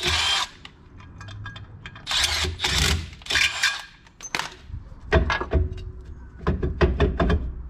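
A cordless drill runs in short bursts, winding M8 bolts into the threaded holes of a Toyota Hilux rear brake drum to push it off the hub. From about five seconds in come a quick series of metallic knocks and clunks as the freed drum is worked loose by hand.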